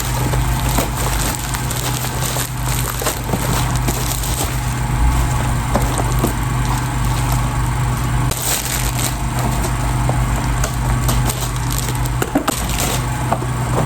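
Packaging being ripped open and handled, a dense run of crackling and rustling with many small sharp clicks.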